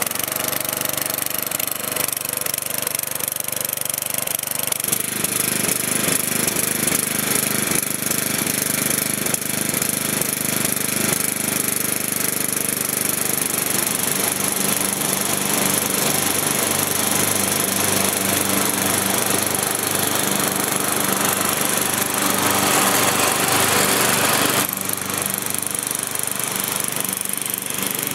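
A Lawn Chief riding mower's 11 hp Briggs & Stratton flathead single-cylinder engine running steadily just after its first cold start of the year, still not running smoothly. Its note changes about five seconds in and again about halfway, as the throttle is set and the mower drives off.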